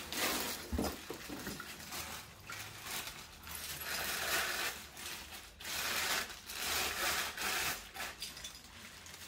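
Clear plastic wrapping rustling and crinkling in irregular bursts as it is handled and pulled off a glass chandelier part, with a soft knock about a second in.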